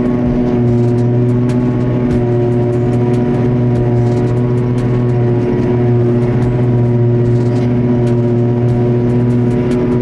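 Diesel engine of a farm machine running steadily under load, heard from inside its cab as an even drone with a strong low hum.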